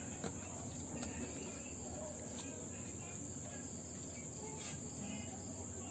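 Steady high-pitched chorus of night insects, with a few faint clicks and knocks of ingredients being handled in a wok.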